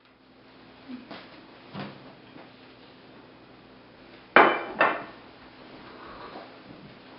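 Kitchen dishes and utensils clattering on a counter: a few light knocks, then two loud clanks in quick succession about four and a half seconds in, the first ringing briefly.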